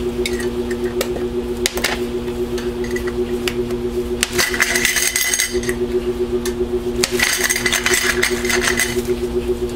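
Small metal salve tins clicking, knocking and sliding against a glass-ceramic cooktop as they are picked up and set down, with two spells of denser clattering about halfway through and again near the end. A steady low hum runs underneath.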